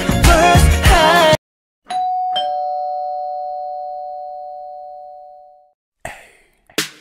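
A pop song with singing cuts off abruptly about a second in, then a two-tone ding-dong doorbell chime rings: a higher note, then a lower one half a second later, both ringing on and slowly fading away.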